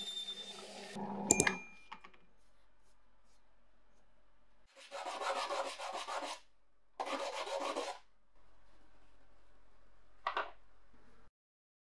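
Small metal part rubbed back and forth by hand on a strip of sandpaper, in two spells of about a second and a half each, with a short scrape near the end. It is preceded by a drill press running with sandpaper held against a spinning part, which ends in a sharp clatter about a second in.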